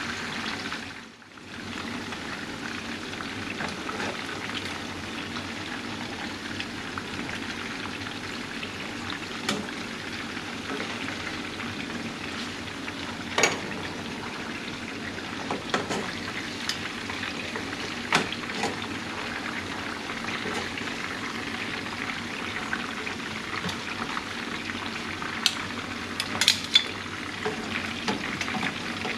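Pompano fillets frying in hot vegetable oil in a pan, a steady sizzle. A few sharp clicks cut through it, the loudest near the end.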